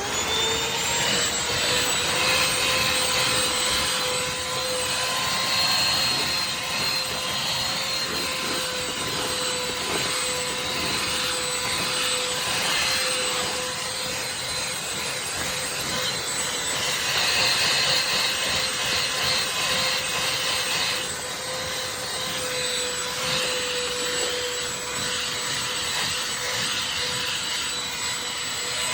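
Shark CH951 UltraCyclone cordless handheld vacuum switched on and running steadily: a motor whine that comes up to speed at once and holds its pitch, over the rush of air being sucked through it.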